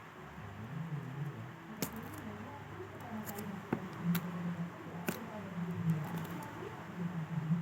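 Handling noises from unboxing a phone: a few sharp clicks and taps, scattered irregularly over a low murmuring background.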